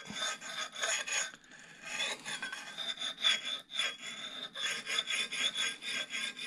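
Axe sharpening puck stone rubbed back and forth across the edge of an axe bit with light pressure, honing the micro bevel: quick, even scraping strokes, about four a second, with a thin high tone under them and a short pause about a second and a half in.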